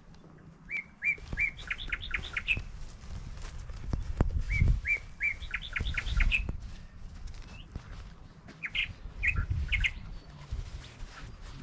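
A songbird singing the same short phrase three times, each a few clear notes followed by a quick run of higher notes. A low rumbling runs underneath.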